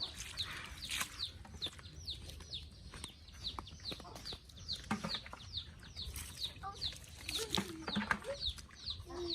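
Chicks peeping: a steady run of short, high chirps, each falling in pitch, about three a second.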